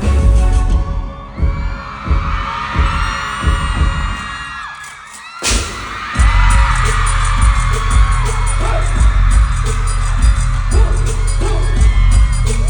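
Concert crowd screaming over booming bass drum hits from the arena sound system. About five and a half seconds in, after a brief dip, there is one sharp bang, and a steady heavy bass beat starts right after it.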